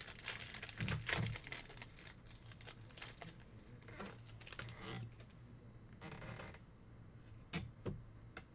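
Football trading card packs being opened: wrappers crinkling and tearing, with irregular clicks and a longer rustle about six seconds in.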